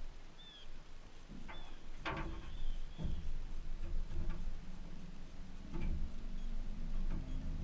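Handling knocks and rubbing in a small fishing boat: one sharp knock about two seconds in and lighter ones later, over a low steady rumble that starts at the same moment, with a few short high chirps early on.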